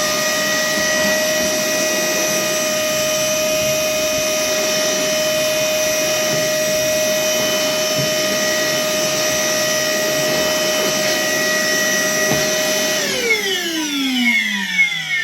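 Worx WX031 cordless brushless wet and dry vacuum running at a steady high whine while sucking up fine sawdust. About 13 seconds in it is switched off and the whine falls steadily in pitch as the motor winds down.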